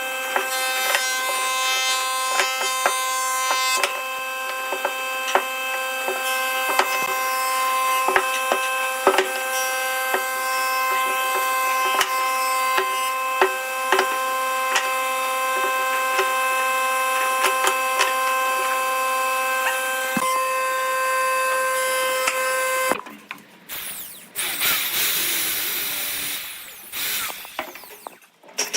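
A power tool working wood: its motor runs at a steady, high whine with scattered sharp clicks, then stops abruptly about 23 seconds in. Quieter, uneven rubbing noise follows.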